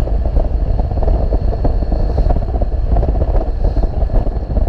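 Suzuki Burgman 650 maxi-scooter being ridden at road speed: its engine and tyre noise under a heavy, gusty wind rumble on the rider's camera microphone.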